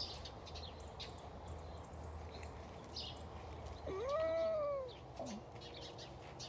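A single drawn-out, meow-like animal call about four seconds in, rising then falling in pitch over about a second. Faint short high chirps are scattered around it.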